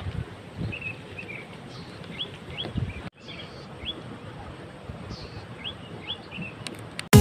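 Small birds chirping outdoors: short, high chirps, some rising and some falling, repeated every second or so over a low rumble of ambient noise with a few soft thumps.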